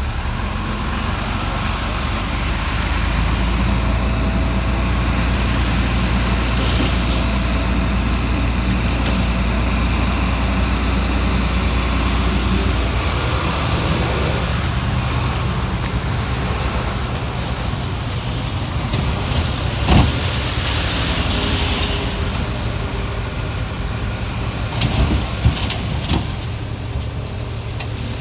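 Heavy diesel earthmoving machinery running steadily, its engine note dropping lower about halfway through, with a sharp knock near two-thirds of the way in and a few more just before the end.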